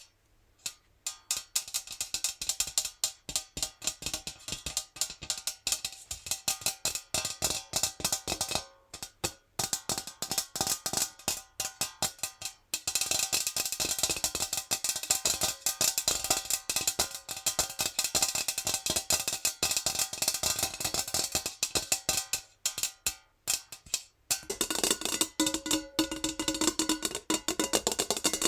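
Natural fingernails tapping fast on a metal jar: a dense run of light, quick clicks with a few short pauses. In the last few seconds the metal rings faintly under the taps.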